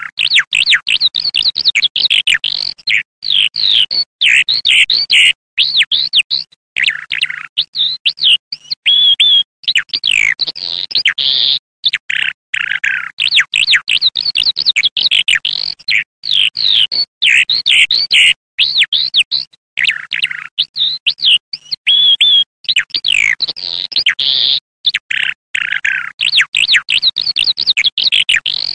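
Eurasian skylark singing its ground song, as given perched on the ground: a long, unbroken stream of rapid, high twittering, warbling and trilling notes with only brief pauses.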